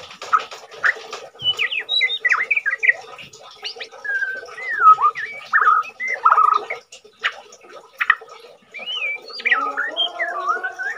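White-rumped shama singing during its moult: a run of varied, quick whistled phrases with sliding and warbling notes, one after another with short gaps. Near the end a lower, drawn-out note with overtones sounds beneath the whistles.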